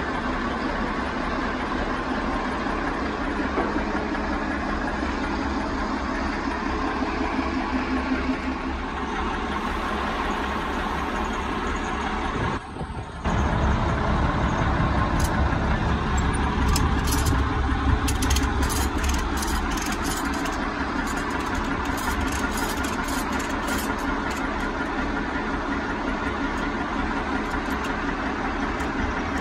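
A heavy engine idling steadily, with a brief dropout near the middle. From then on there is a run of light, irregular clicks from a ratchet strap being worked and tightened.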